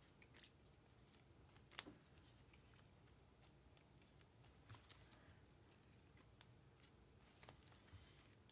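Near silence with faint, scattered clicks and short rustles of trading-card packs and cards being handled.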